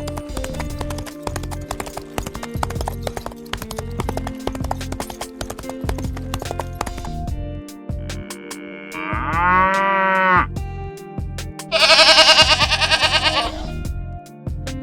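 Background music with a steady beat, over which a farm animal bleats. There is a shorter pitched call about nine seconds in, then a loud, wavering bleat near the end.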